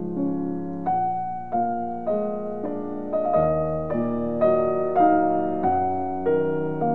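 Background piano music: slow, gentle notes and chords struck every half second or so, each one fading away.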